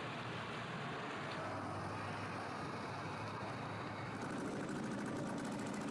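Steady street ambience of road traffic, with a low engine hum growing a little stronger about two-thirds of the way through.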